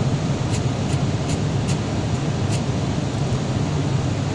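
Steady in-flight noise of an Airbus airliner descending on approach: engines and airflow running evenly, with a few faint ticks in the first three seconds.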